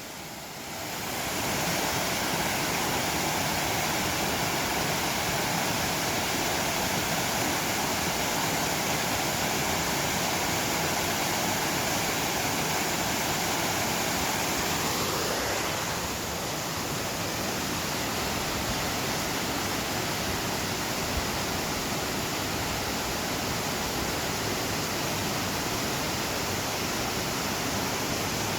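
Mountain valley stream rushing steadily. It swells about a second in and eases slightly about halfway through.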